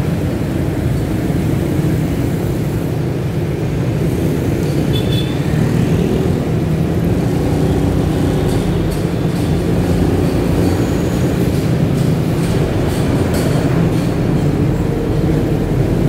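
Motorcycle engine running steadily while riding in slow, dense city traffic, a constant low hum over the rumble of surrounding cars and motorbikes.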